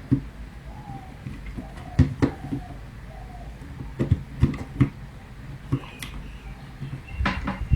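Irregular clicks and knocks of plastic electrical parts, a trip switch and distribution board fittings, being handled and snapped into place on the board's mounting tray.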